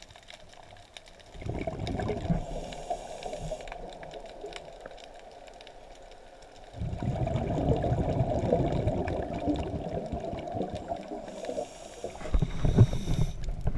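Scuba diver's exhaled bubbles rushing and bubbling past the underwater camera in long bursts of several seconds, about a second and a half in, again from about seven seconds and near the end. Faint underwater clicking and crackle between the bursts.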